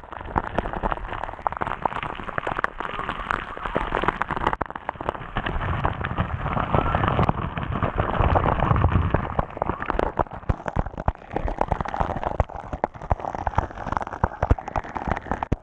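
Waterfall water pouring straight onto the camera: a steady roar with a dense, irregular patter of water striking the housing and lens, like heavy rain.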